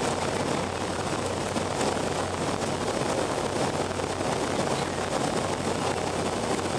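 Steady cabin noise of a BAe Avro RJ85 on approach with flaps extended: the even rush of airflow and the hum of its Honeywell LF507 turbofans, heard inside the cabin from a window seat by the wing, with a steady low drone underneath.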